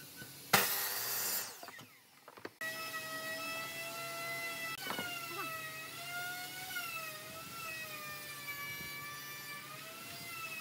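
Miter saw blade cutting through a wooden block: a loud burst lasting about a second that dies away. From about two and a half seconds in, a steady whine whose pitch slowly wavers.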